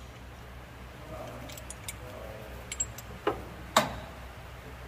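Light metallic clicks and clinks, then two sharper knocks about half a second apart in the second half, over a low steady hum.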